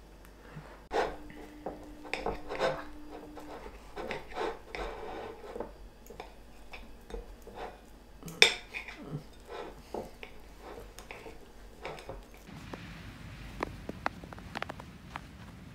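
Knife and fork clinking and scraping on a ceramic plate while pancakes are cut, with one sharp clink about eight seconds in. About twelve seconds in this gives way to a soft outdoor hiss with footsteps on snow.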